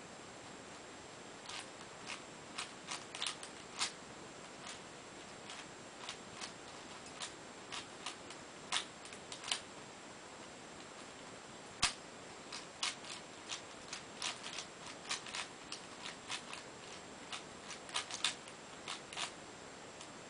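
Plastic layers of a Cube4You 3x3x7 cuboid puzzle clicking as they are turned by hand: irregular runs of quick turns with short pauses between, the sharpest click about halfway through.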